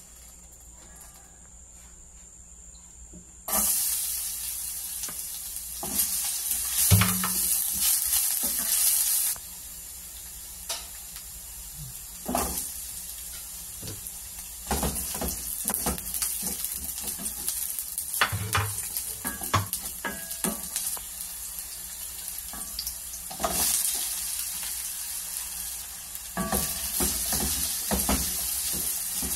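Food frying in hot oil in a stainless steel pan. A faint hiss jumps suddenly to a loud sizzle about three and a half seconds in, then sizzles on, swelling and easing several times, while a wooden spatula stirring garlic, red onion and diced potatoes scrapes and knocks against the pan.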